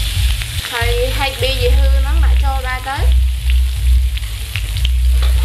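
Vegetables and garlic sizzling in oil in a wok as a metal spatula stirs them, over a steady low hum. A pitched, wavering tone sounds for about two seconds, starting just under a second in.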